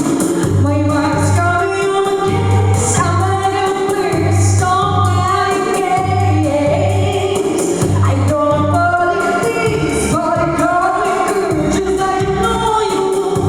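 A woman singing a slow pop-rock ballad over a band or backing track, with a steady low bass beat about once a second.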